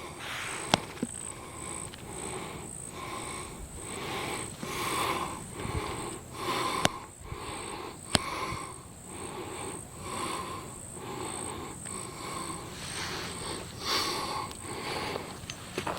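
Footsteps crunching through dry forest-floor litter at a steady walking pace, a little under two steps a second, with an occasional sharp twig-like click. Underneath is a faint, high, pulsing insect call.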